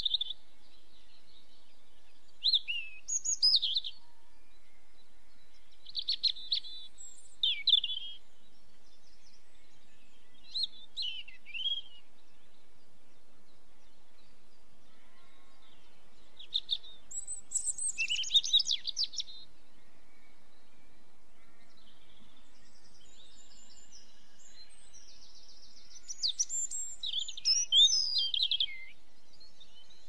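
Small songbirds singing in short, high phrases that sweep up and down in pitch, coming in bouts every few seconds over a steady faint hiss.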